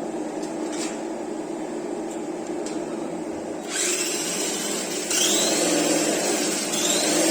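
Simulated engine sound from an RC truck's sound module, played through its small speaker: a steady engine hum, then a louder, hissier rev about four seconds in, with short rising whines three times.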